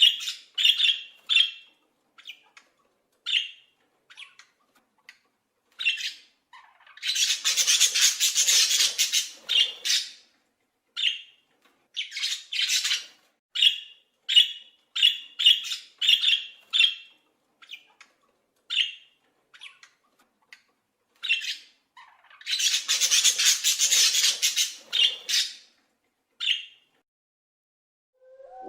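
Animal calls: many short, high squawking or squeaking calls, singly and in quick runs, broken twice by a longer harsh, hissing screech lasting two to three seconds.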